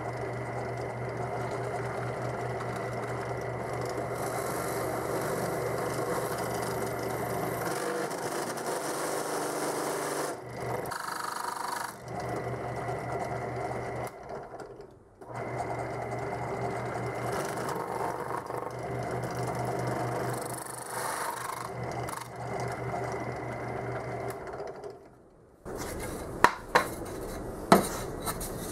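Bench drill press running with an adjustable circle-cutting bit scraping a round hole through a plywood board: a steady motor hum under the cutter's rasping, dipping briefly about halfway and stopping near the end. A few sharp knocks follow as the board is handled.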